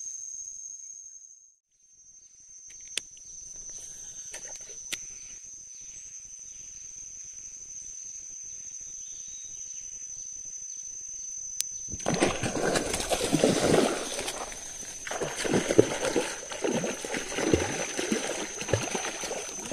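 A steady high-pitched insect whine, then from about twelve seconds in loud, irregular splashing from a hooked fish thrashing at the surface close to the bank.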